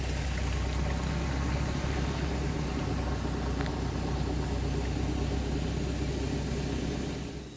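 Engine of a flood-pumping truck running steadily with a low rumble, with pumped water gushing from a discharge hose onto pavement; the sound cuts off near the end.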